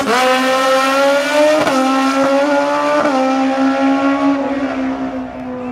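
Drag car's engine pulling hard at wide-open throttle down the track. Its pitch drops briefly and climbs again at gear shifts about a second and a half and three seconds in, then fades near the end.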